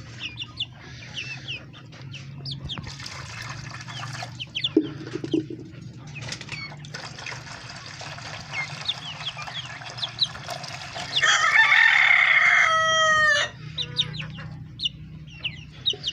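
Chickens calling with short high clucks and cheeps, and a rooster crowing once loudly about eleven seconds in for about two seconds.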